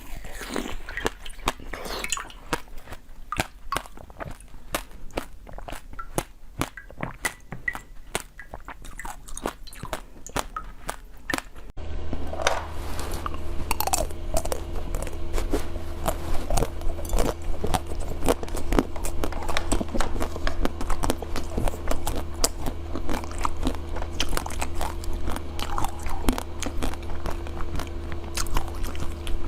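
Close-up eating sounds: crunchy bites and chewing, a quick run of sharp crunches. About twelve seconds in, a steady low hum comes in under the chewing.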